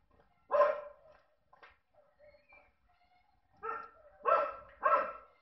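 A dog barking four times: one bark about half a second in, then three in quick succession near the end.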